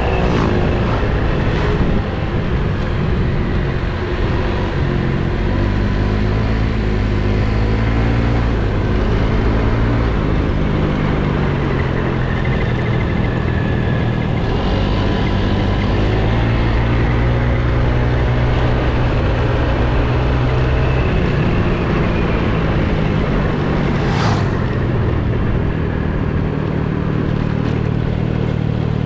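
Motor scooter engine running while being ridden, its pitch rising and falling with the throttle, over steady wind noise. A single sharp click about three-quarters of the way through.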